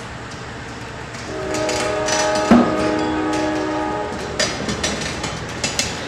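A multi-tone train horn sounds steadily for about three seconds, with a sharp metallic bang partway through. After the horn stops comes a run of short metallic clanks and clicks, like rail equipment moving.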